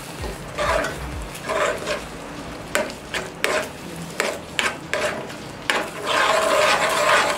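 Spoon stirring a thick chicken and milk filling in a pan as it cooks down, in repeated swishing strokes with sharp clicks of the spoon against the pan.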